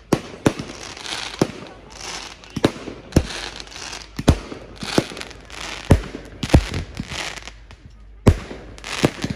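Fireworks display: aerial shells bursting in quick succession, about a dozen sharp bangs roughly one a second, with crackling and hissing between them. There is a brief lull shortly before one of the loudest bangs near the end.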